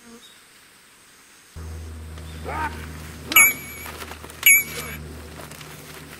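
Two loud sword-clash clangs about a second apart, each with a wavering metallic ring. Under them, a low steady hum that starts abruptly about a second and a half in.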